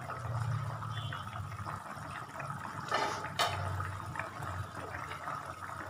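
A pot of chicken stew simmering, the broth bubbling. There are a couple of faint clicks about three seconds in.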